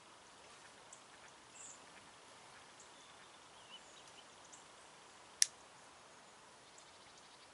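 Faint outdoor background hiss with scattered soft ticks, broken by one sharp click about five and a half seconds in.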